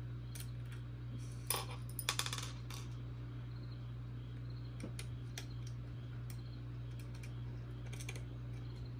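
Small metal parts clinking against the robot's chassis and the worktable: a brief clatter about one and a half seconds in and a quick run of bouncing clicks about two seconds in, then scattered light clicks from a screwdriver and fingers at work. A steady low hum runs underneath.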